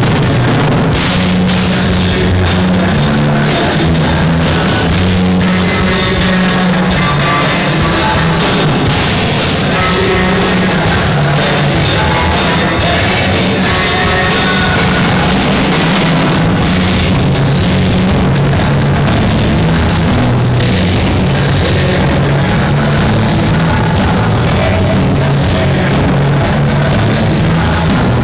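A rock band playing loud at rehearsal, a drum kit and a bass line stepping between notes under a dense wall of instruments.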